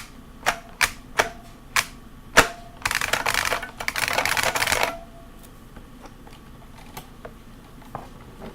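IBM Model M keyboard's buckling-spring keys being typed on, loud and clicky. A few separate keystrokes give way to a fast, dense run of typing for about two seconds, then a few slower, softer strokes. Some strokes leave a short ring.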